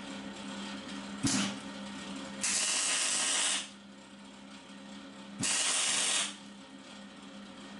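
MIG welder arc crackling in three short tack welds on steel box-section framework: a brief strike about a second in, then two bursts of about a second each. A steady low hum runs underneath.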